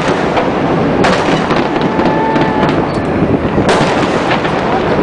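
Aerial firework shells bursting, with heavy booms about a second in and near four seconds in over a continuous rumble and crackle of other bursts.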